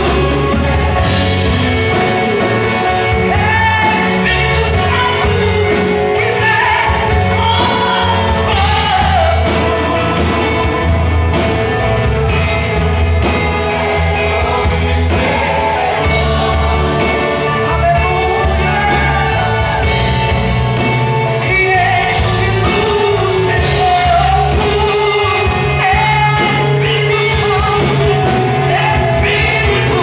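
Live Christian worship band playing: a woman's lead vocal sung into a microphone over electric guitars, drum kit and keyboard, without a break.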